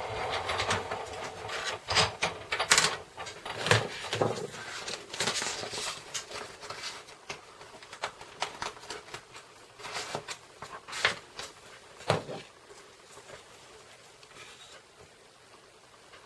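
A hand-cranked Big Shot die-cutting machine being loaded and run: irregular clicks and knocks from the cutting plates and the crank. They die down after about twelve seconds.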